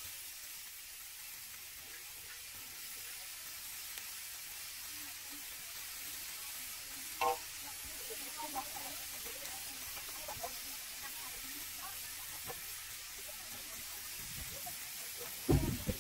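Food sizzling as it cooks: a steady hiss, with a brief voice about seven seconds in.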